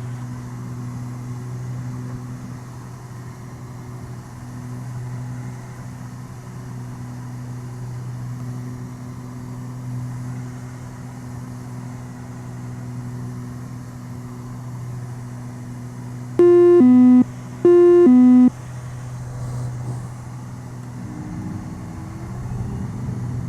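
Steady drone of the Beechcraft G58 Baron's twin Continental IO-550 engines and propellers. About 16 seconds in, a loud two-note electronic alert tone that steps down in pitch sounds twice in quick succession.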